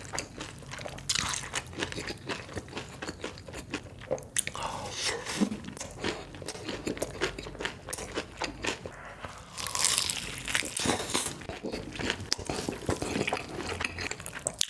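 Close-up eating sounds of crispy fried chicken: repeated crunching bites into the batter, with irregular crackles and chewing in between. There are louder bursts of crunching about a second in, around the middle and near the end.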